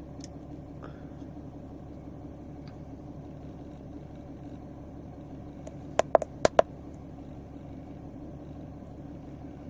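Steady low hum inside a car cabin. About six seconds in come four sharp clicks in quick succession.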